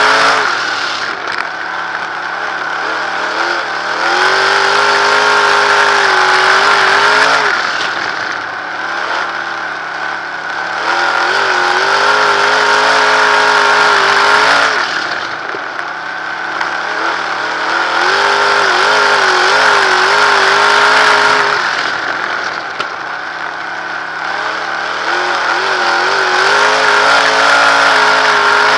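A 360 sprint car's V8 engine heard from the cockpit, running hard at racing speed. Four times it drops off as the driver lifts for a turn, then the pitch climbs again as he gets back on the throttle, about every seven seconds.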